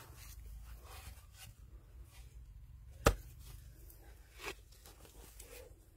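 A short-handled hoe striking into a dry earth bank: one sharp blow about three seconds in and a softer one about a second and a half later, with faint scraping and crumbling of soil between.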